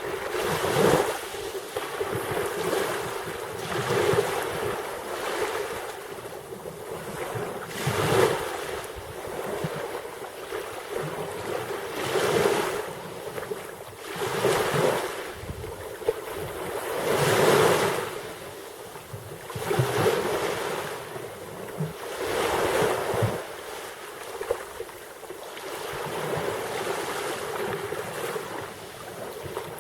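Black Sea waves surging and washing in, each surge swelling and fading every two to four seconds.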